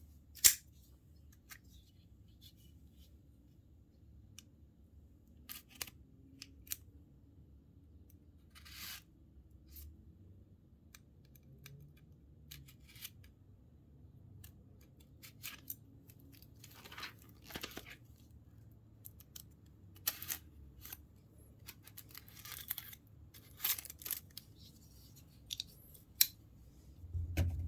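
Packaging being handled and opened by hand: scattered clicks, scrapes and short tearing sounds. The loudest is a sharp click about half a second in, and the handling grows busier in the second half.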